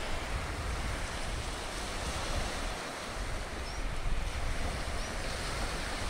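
Small surf washing onto a sandy beach in a steady hiss of breaking waves, with wind buffeting the microphone in uneven low rumbles.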